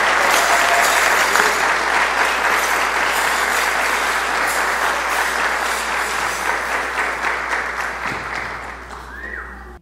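Audience applauding: a dense, steady wash of many hands clapping that fades away over the last few seconds.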